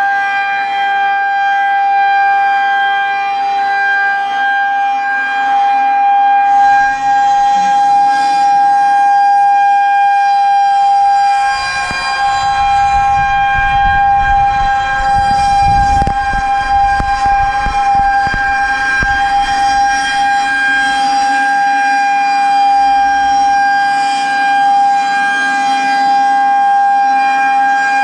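Federal Signal 2001-130 rotating outdoor warning siren sounding its steady Alert tone, one held pitch with overtones. From about twelve to twenty seconds in, a low rumble on the microphone lies under it.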